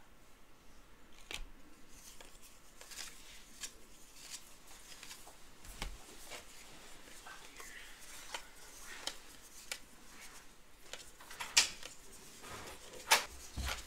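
Trading cards and their packaging being handled on a table: scattered light scrapes, rustles and clicks of card stock sliding and being set down, with two sharper clicks near the end.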